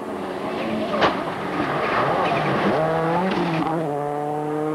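Rally car engine running hard on a gravel stage, with a sharp crack about a second in; the engine note drops briefly, then holds steady as the car slides through the corner, its tyres scrabbling on gravel.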